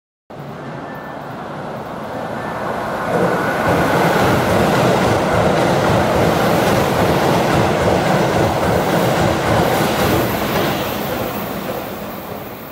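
Keihan 3000 series electric train passing through a station at speed: wheel-and-rail noise builds over the first few seconds, holds loud through the middle, then fades near the end.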